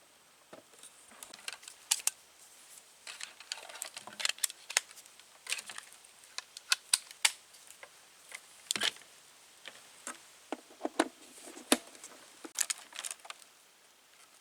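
A string of irregular sharp clicks and light taps, some louder than others, with soft rustling between them; they stop shortly before the end.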